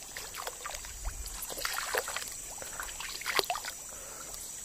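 Scattered splashes and sloshing in shallow stream water as a small hooked snakehead is played in on a baitcasting rod, with the sharpest splashes about a second and a half in and again past three seconds.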